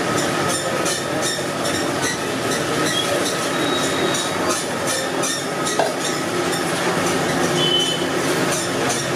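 A bare hand squeezing and sloshing tomatoes and spices in the watery rasam base in an aluminium pot, giving quick, repeated wet squelches and splashes. Under it is steady, loud stall noise.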